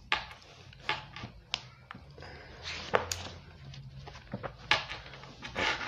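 Handling noise on a phone's microphone: an irregular scatter of clicks, taps and short rubs as the phone is held and handled, over a faint low hum.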